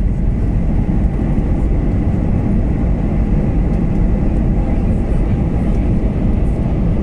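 Steady low rumble inside the cabin of an Airbus A321neo on the ground just after landing, with a faint steady high tone over it.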